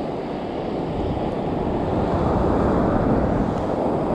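Wind buffeting the microphone over the rush of surf breaking on the beach, swelling to a peak about three seconds in.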